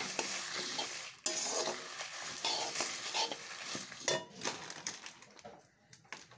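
Whole spices, mostly coriander seeds with dried red chillies and bay leaves, being stirred and scraped round a wok with a perforated steel skimmer as they dry-roast: a dry rattling scrape with ticks of metal on metal. The stirring stops a little past two-thirds of the way through, leaving only a few faint crackles from the roasting seeds.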